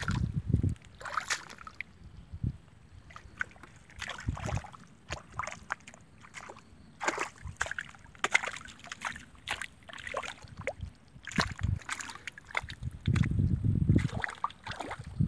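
Wet mud and shallow water squelching and sloshing in irregular bursts as hands dig through the mud and feet shift in it, with a low rumble near the end.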